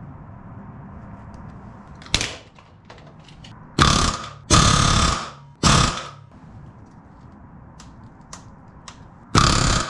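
Pneumatic rivet gun driving solid rivets into an aircraft wing's main spar. It goes in bursts of rapid hammering: a short one about two seconds in, three close together a little later with the middle one the longest, and another near the end. Small clicks of handling fall between the bursts.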